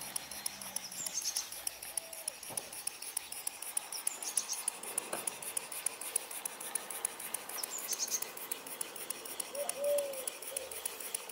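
Stuart 10V single-cylinder model steam engine running on compressed air, its exhaust giving a rapid, even ticking. Birds chirp briefly a few times over it.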